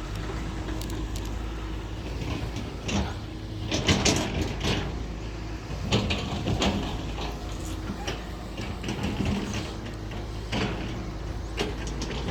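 Heavy diesel machinery running steadily at an earthworks site, with louder noisy surges about four, six and eleven seconds in.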